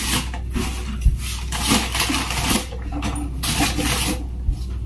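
Plastic grocery bags and packaging rustling in repeated short bursts as groceries are handled and put away, with a small knock about a second in.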